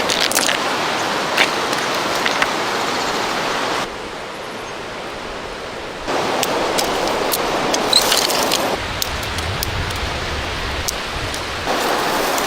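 A river rushing steadily, its loudness jumping abruptly up or down a few times, with scattered sharp crackles and clicks over it.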